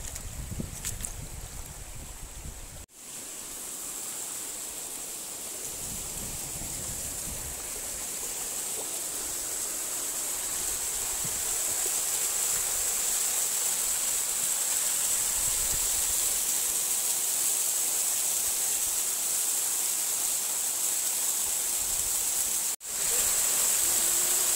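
Waterfall water spilling and splashing down a rock face, a steady rushing hiss that grows louder. For the first three seconds it is a shallow river running over stones, with a low rumble of wind on the microphone. The sound drops out sharply twice, at about three seconds and near the end.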